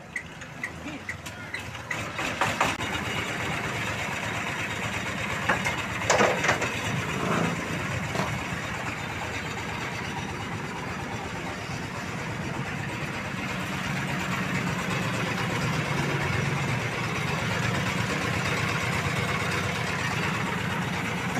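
Small stationary single-cylinder engine on a suction truck being cranked with slow ticking and catching about two seconds in, then running steadily. There are a few loud clanks about six seconds in.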